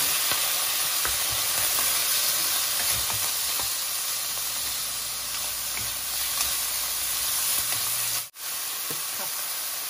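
Sliced chicken breast sizzling in oil and soy sauce in a nonstick frying pan, stirred with a wooden spatula that scrapes and taps lightly against the pan. The sound drops out for an instant about eight seconds in.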